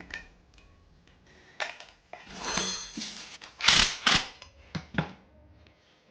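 Metal tools and parts clinking, clanking and scraping as a new engine mount is fitted and bolted onto its bracket: a run of irregular sharp clicks, with the two loudest clanks a little past halfway.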